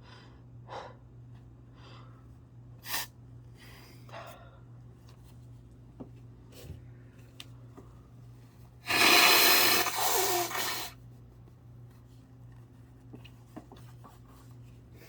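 A person's short sniffing breaths, then a loud sneeze about nine seconds in, lasting about two seconds.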